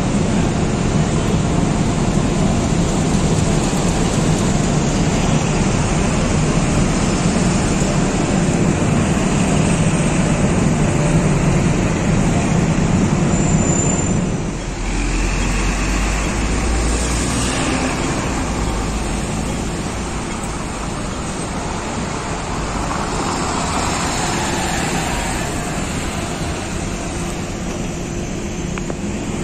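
Volvo B8L double-decker bus's six-cylinder diesel engine running with a steady low drone as the bus pulls out. About halfway through, the sound drops and gives way to the bus driving off along a road with passing traffic.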